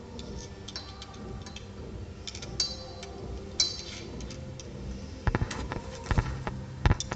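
Small metal clicks and clinks of a bolt and mudguard bracket being handled and fitted at a fat-tyre bicycle's front fork, then three louder knocks in the last two seconds.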